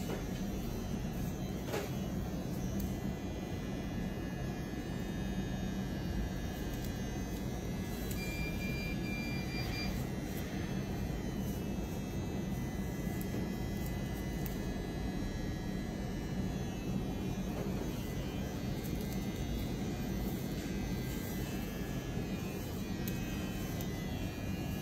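Steady low hum, unbroken and even, with a faint thin high tone for a couple of seconds about eight seconds in.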